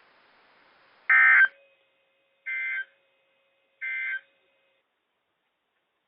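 Three short bursts of NOAA Weather Radio's warbling digital data tones, about a second and a half apart, with the first much louder than the other two: the EAS end-of-message code that closes the flood warning broadcast.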